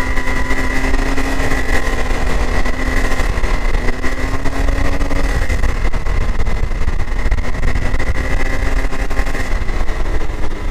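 Can-Am Maverick X3 DS Turbo's turbocharged three-cylinder engine running steadily at about 5100 RPM while under way, with the stock primary drive clutch rattling at that speed.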